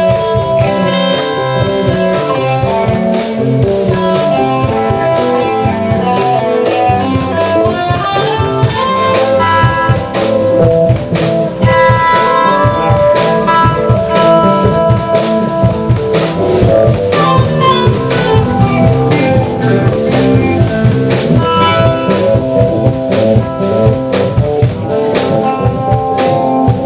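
Live blues band playing an instrumental passage: electric guitar over electric bass and a drum kit, with no singing.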